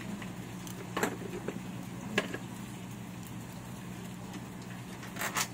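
A few sharp metallic clicks and knocks from an aftermarket motorcycle exhaust canister being handled and fitted onto its elbow pipe: one about a second in, one about two seconds in, and a quick double knock near the end. Steady rain hiss and a low hum run underneath.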